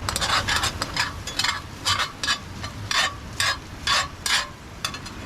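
A utensil stirring and scraping ground beef and eggs around a frying pan on a camp stove, in quick, irregular strokes about two or three a second, while the food sizzles.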